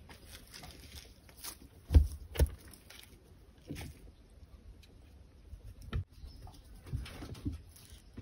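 Rustling of straw and fur with a few dull thumps, the loudest two in quick succession about two seconds in, as a grey rabbit is stroked by hand and shifts about in its straw-bedded wooden hutch.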